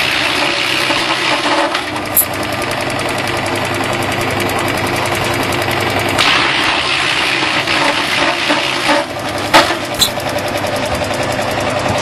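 Disc wood chipper running steadily and chipping branches fed into its chute: louder stretches of grinding and crackling at the start and again from about six to nine seconds in, with a few sharp cracks as the wood breaks up.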